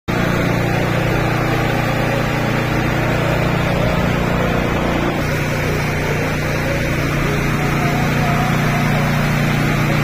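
Pressure washer running steadily, its motor humming under the hiss of the water jet blasting moss off clay roof tiles. The motor's pitch shifts slightly about halfway through.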